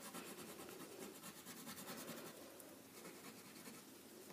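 Black wax crayon rubbing across paper as an area is coloured in solid: a faint, steady scratching of rapid strokes.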